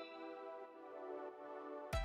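Background music: a soft, held chord of sustained tones, with a low beat and new notes coming back in near the end.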